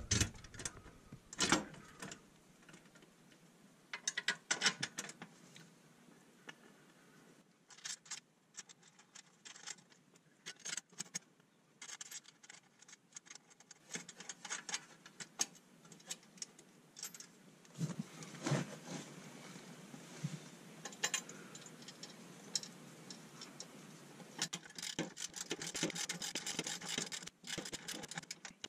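Metal-on-metal handling as bolts and a steel step bracket are fitted under a compact tractor's platform: scattered clicks, taps and scrapes. Near the end these thicken into a denser run of rapid rasping clicks as a wrench comes into use.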